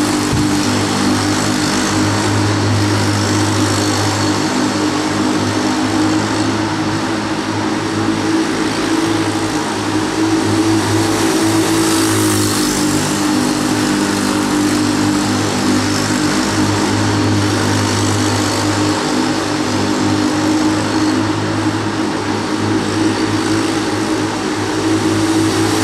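Small engine of a derny pacing motorbike running at a steady pace on a velodrome, its drone holding an even pitch and level throughout.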